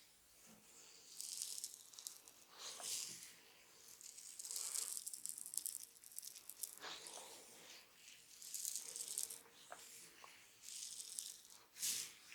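Fingers rubbing and scratching through hair and over skin during a head and ear massage, heard as soft bursts of scratchy rustling every second or two. A sharper click comes near the end.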